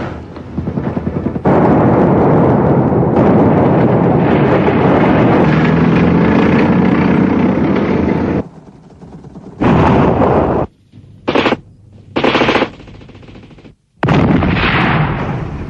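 Automatic gunfire: a long, continuous run of rapid shots, then several short bursts with brief pauses between them. A final loud burst near the end fades away slowly.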